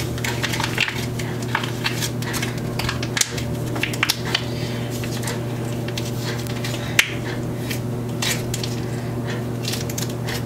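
Foil face-mask sachet crinkling and crackling as it is squeezed out, with soft squishes and a few sharp clicks of a chopstick on the bowl. A steady low hum runs underneath.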